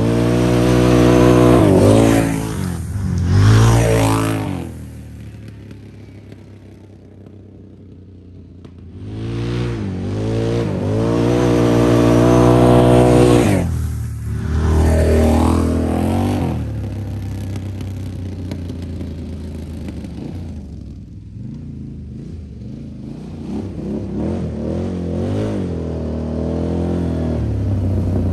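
Can-Am Renegade ATV with a Big Gun EVO U Series aftermarket exhaust, the engine revving hard in rising bursts as it accelerates. It fades for a few seconds, revs up again, then runs steadier and grows louder toward the end as it comes back.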